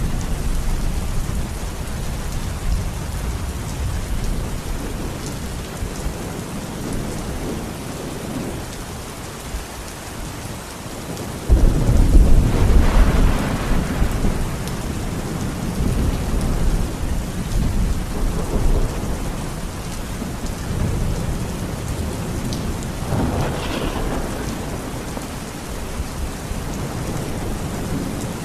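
Thunderstorm: steady heavy rain with rolling thunder, and a sudden loud thunderclap about eleven seconds in that rumbles on for a few seconds before fading, with quieter rumbles later.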